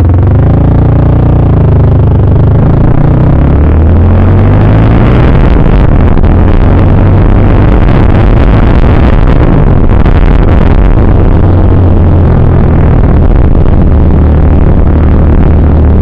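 CF Moto 300SR's single-cylinder engine through an Akrapovic full-system exhaust, pulling away and running on the move, its pitch rising and falling as the throttle opens and closes. Very loud throughout, with a rougher, noisier stretch in the middle.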